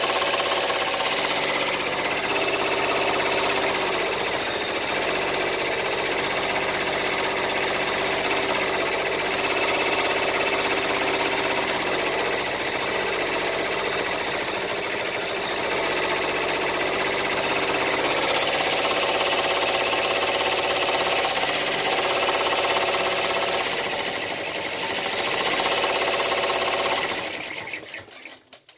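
Baby Lock Enterprise ten-needle embroidery machine stitching steadily at its 1000-stitches-per-minute setting, a fast even chatter of the needle bar and hoop drive. The running falls away near the end.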